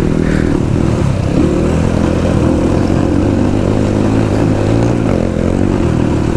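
Motorcycle engine running steadily while being ridden, a continuous low drone.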